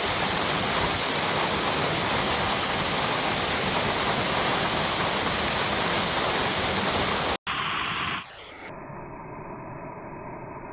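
Waterfall, its water pouring steadily for about seven seconds. It cuts off suddenly, and a much quieter, muffled steady noise follows.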